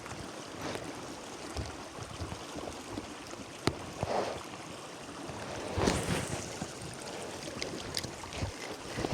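Steady rush of a small stream flowing, with a few sharp clicks and a louder rustling swell about six seconds in.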